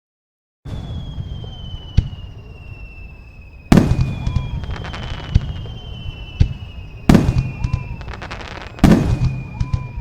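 Aerial fireworks sound effect, starting just under a second in. Long whistles slowly drop in pitch, four loud bursts come at uneven intervals, and dense crackling follows the bursts.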